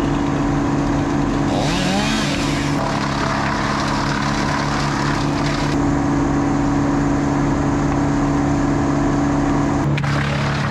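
Engine running steadily at high speed, its pitch dipping and recovering briefly about two seconds in.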